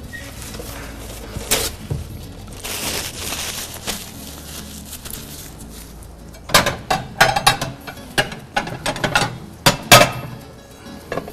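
Grilling vegetables sizzling, then about six and a half seconds in a quick run of clinks and knocks of dishes and utensils as a plate is handled.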